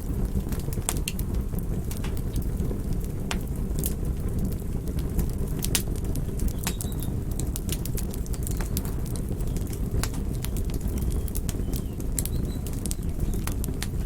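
Campfire burning: a steady low rush of flames with irregular sharp crackles and pops from the burning wood.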